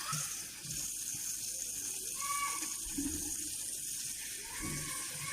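Kitchen tap running steadily into a sink while dishes are being rinsed.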